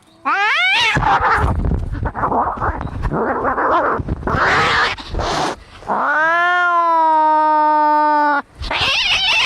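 Cats fighting: a short rising yowl, then several seconds of harsh hissing and spitting. About six seconds in comes one long, steady caterwaul lasting over two seconds, then more hissing.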